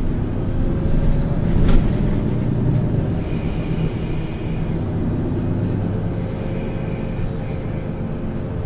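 MAN Lions City Euro 6 city bus engine running steadily at a fairly even pitch as the bus drives, with a short sharp knock a little under two seconds in.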